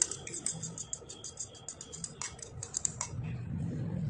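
Beaten egg poured into hot oil in a saucepan, sizzling and crackling in rapid pops. The crackle is dense at first and thins out after about three seconds.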